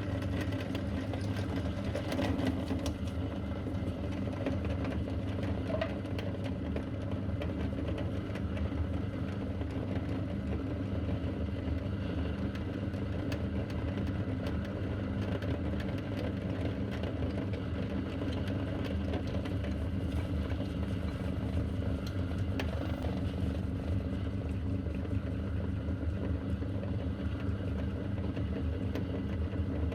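Electric meat grinder running steadily with a constant motor hum, grinding mini chocolate bars with a continuous light crackle.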